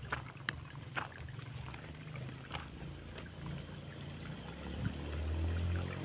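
Water trickling from a metal watering can onto tilled soil, with a few scattered footsteps and a low wind rumble on the microphone that grows stronger near the end.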